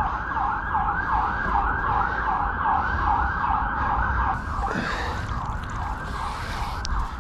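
Emergency vehicle siren in fast yelp mode: a rapid rise-and-fall wail repeating three to four times a second, a little weaker in the second half. Low wind rumble underneath, and a brief rustle about two-thirds of the way through.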